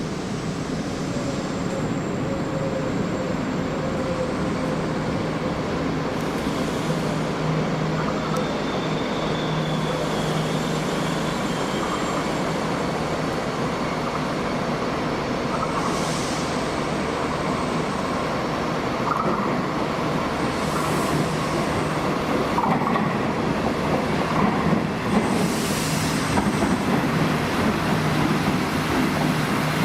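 Train running at a railway station: a steady rumble with a low hum, broken a few times by short bursts of hiss.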